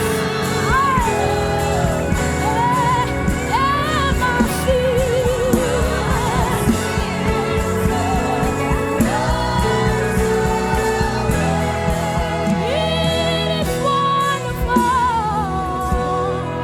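Live gospel worship music: a voice sings gliding, wavering notes over steady sustained accompaniment.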